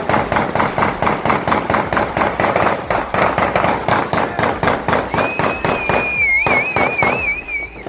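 A string of firecrackers going off in a rapid, even run of sharp pops, about seven or eight a second. About five seconds in, a high wavering whistle joins in over the crackling.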